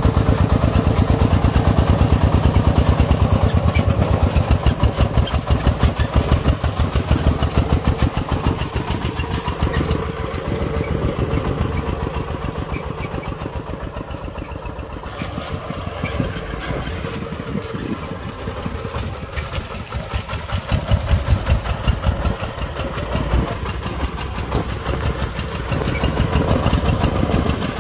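Motorbike engine running along with the single-cylinder diesel of a sand-loaded công nông three-wheeled farm truck chugging in a fast, even beat. It is loudest for the first several seconds, quieter in the middle, and louder again later on.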